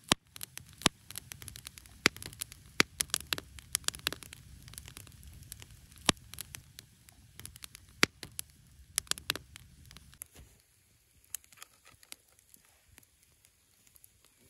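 Campfire crackling: burning wood popping in many irregular sharp snaps over a low rumble. About ten seconds in the rumble drops away and the pops become fewer and fainter.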